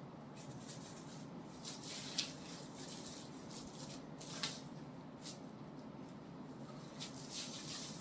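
Light, scattered clicks and taps of small objects being handled, a few seconds apart, over a steady low hum.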